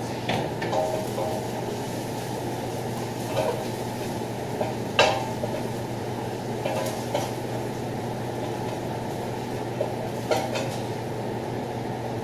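A metal spoon stirring garlic frying in oil in a steel pot, clinking and knocking against the pot's sides a few times at irregular intervals, loudest about five seconds in. Under it runs the steady low hum of a kitchen extractor hood fan.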